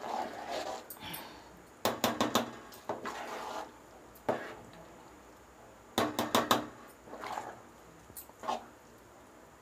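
Steel spoon stirring thick vermicelli kesari in a large aluminium pot, knocking and scraping against the pot in two clusters of sharp clatter about two seconds in and about six seconds in, with softer scrapes and squelches of the sticky mass between.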